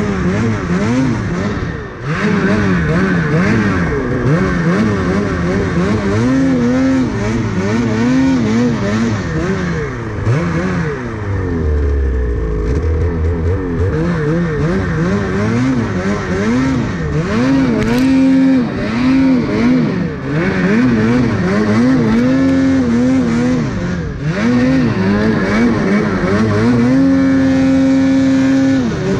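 Ski-Doo Summit 850 snowmobile's two-stroke twin engine revving up and down over and over as the rider works the throttle in deep powder, then held at a steady high rev near the end.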